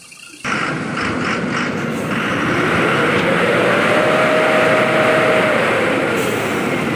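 Heavy vehicle engine running hard, starting abruptly about half a second in; its pitch rises, holds, then eases off near the end.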